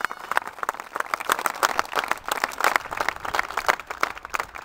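A small crowd applauding, many hands clapping at once in a dense, irregular patter.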